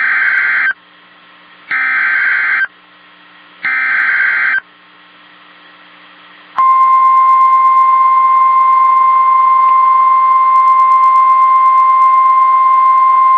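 Emergency Alert System SAME header: three bursts of buzzing digital data tones, each about a second long and spaced about two seconds apart. About six and a half seconds in, a steady single-pitched alarm tone starts and holds. It is the weather-radio warning alert tone that comes before a severe thunderstorm warning.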